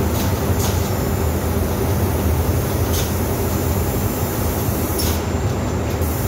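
Steady, loud machinery drone of a railway coach paint booth: a low hum under an even rush of air noise, with a few faint clicks.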